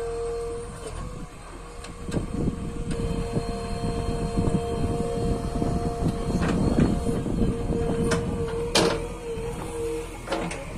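JCB backhoe loader's diesel engine running under load, with a steady hydraulic whine, as the backhoe arm works the earth. A few sharp knocks and clanks stand out, the loudest about nine seconds in.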